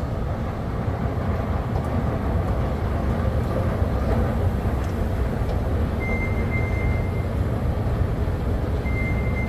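Steady low rumble of a long station escalator running, heard while riding up it. A faint thin high tone sounds briefly twice in the second half.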